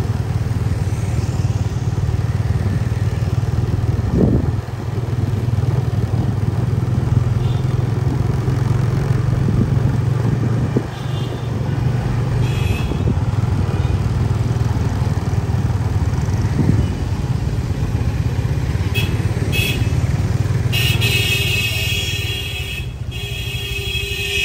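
Motorbike engine running steadily while riding through street traffic. A vehicle horn beeps twice briefly near the end, then sounds one longer blast.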